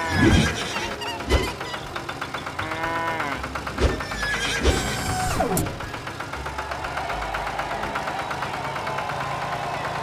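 Cartoon farm animals calling, a horse whinnying among them, with several dull thumps as they climb into a trailer. About halfway through, a tractor engine starts running with an even pulse.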